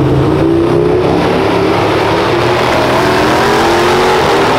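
A supercharged Jeep Grand Cherokee Trackhawk V8 and a twin-turbo LSX V8 in a 1973 Chevrolet Impala donk at full throttle in a drag race. The engine notes climb in pitch as the cars accelerate down the strip.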